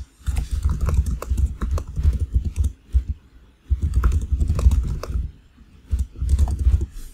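Typing on a computer keyboard: quick runs of keystrokes in three spells, with short pauses about three seconds in and again around five seconds in.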